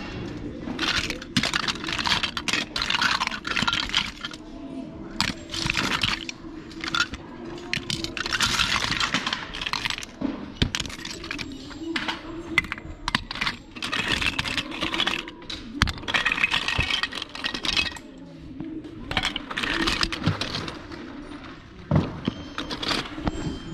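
Small hard plastic toy figures and loose parts clattering and clicking against one another as they are sifted through by hand, in repeated bursts of rattling a second or few long.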